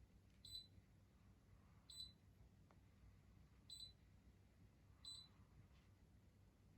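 Mitsubishi Avanti Plus air conditioner giving four short, high-pitched chirps, spaced about one and a half seconds apart: the weird noise the unit is making.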